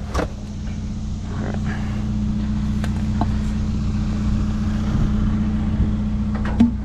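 A motor vehicle engine running with a steady low hum, swelling a little through the middle. There is a short knock just after the start and a couple of faint clicks about three seconds in.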